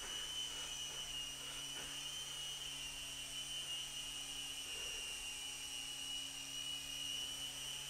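Home-built micro coaxial RC helicopter, a flying model of NASA's Ingenuity built on Blade mCX parts, hovering. Its two counter-rotating rotors and small electric motors give a steady, faint hum with a high whine.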